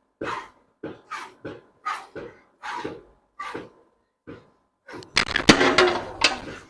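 Hand-milking a cow: short squirts of milk hitting a bucket, two to three a second with the alternating pulls on the teats. Near the end comes a louder, busier stretch with a sharp knock.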